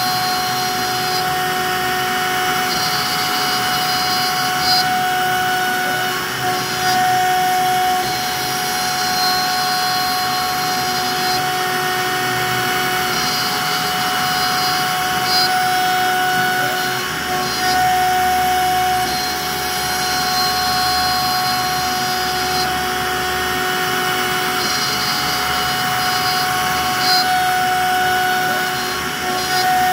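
CNC router spindle running at high speed, its bit carving a relief into a softwood board: a steady high whine with a cutting rasp that swells and eases every few seconds as the bit moves through the wood.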